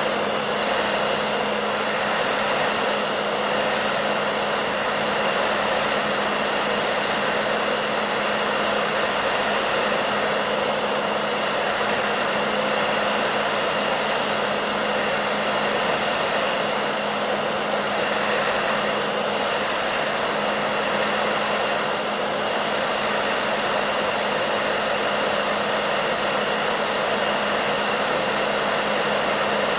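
Hair dryer running steadily: a continuous rush of blown air over a steady motor hum with a faint high whine.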